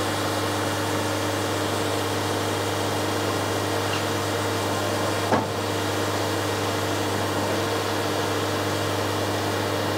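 Wood-Mizer LT70 sawmill's diesel engine running steadily with a constant hum, with one short click about five and a half seconds in.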